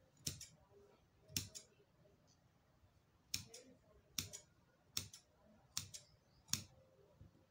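Large tailor's shears snipping off the excess ends of lace sewn onto an organza strip: about seven short, sharp snips, roughly one a second.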